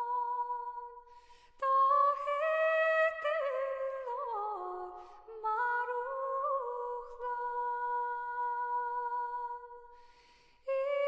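Slow, soft background music: a wordless melody of long held notes, some sliding between pitches, pausing briefly twice.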